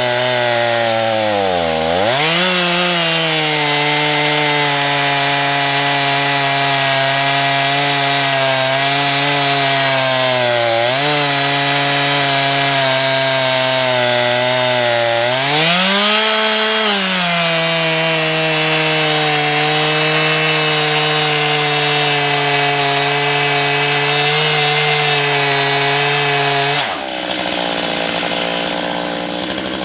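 Two-stroke chainsaw fitted with a guide-bar mill attachment ripping lengthwise through a log, the engine held at high revs under load. Its pitch sags and recovers a few times as the chain bogs in the cut, and it drops lower near the end before picking up again.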